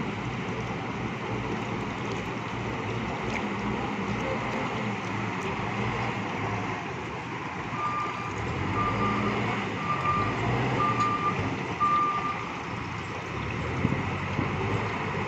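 Bull backhoe loader's diesel engine running steadily. About halfway through, its reversing alarm sounds five short beeps, about once a second.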